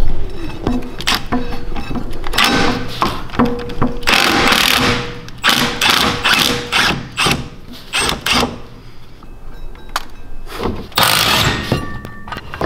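Compact cordless impact wrench hammering in several short bursts as it undoes the brake caliper bolts, with metallic knocks in between.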